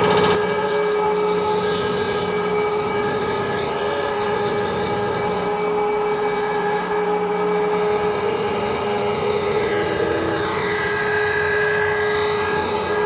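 HBS 1300 block surfacing machine running, its cutter head taking a pass across the deck of a 305 stock engine block as the table feeds the block beneath it: a steady mechanical whine with a constant tone and machining hiss.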